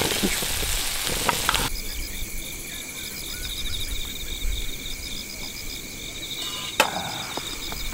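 Food sizzling in a pan, which stops abruptly about a second and a half in. Insects then chirp steadily in rapid pulses, with one sharp click near the end.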